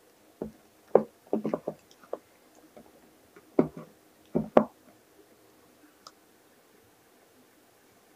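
Silicone spatula folding whipped cream into mousse batter in a glass bowl: a handful of short, wet squelches and light knocks against the glass, grouped around one second in and again around four seconds in.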